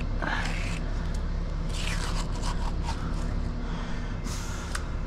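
A steel margin trowel scraping wet concrete along the edge of a wooden 2x4 form board in a few short strokes, over a steady low mechanical hum.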